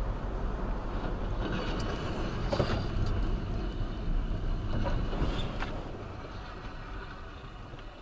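Wet-road tyre and engine noise inside a moving car, with the windshield wiper sweeping the glass. The noise eases off over the last couple of seconds.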